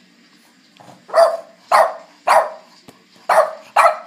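A Boston Terrier barking: five short barks starting about a second in, three in quick succession, a pause, then two more. It is demand barking for its dinner.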